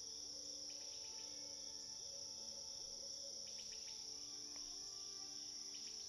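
Faint, steady high-pitched drone of insects chirring, with faint sustained musical tones underneath.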